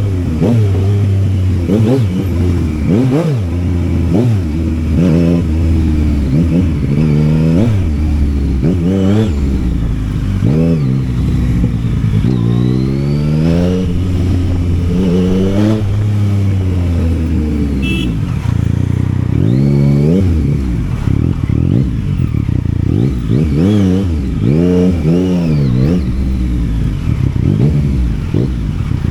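Yamaha Tracer 900's 847 cc inline three-cylinder engine under way, revving up and dropping back again and again, its pitch rising and falling many times as the bike accelerates through the gears and eases off.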